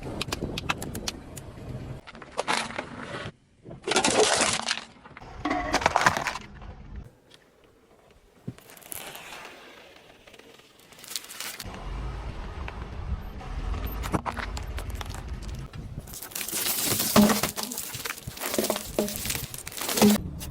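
Objects crunching and cracking as a car's tyres crush them, in a series of separate bursts. A car's low rumble comes in about halfway through, and a loud stretch of crunching follows near the end.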